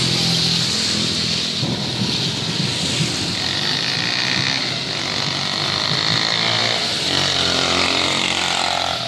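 Steady rain falling on a flooded asphalt road while small motorcycles and scooters ride past one after another, their engines rising and fading and their tyres hissing through the water.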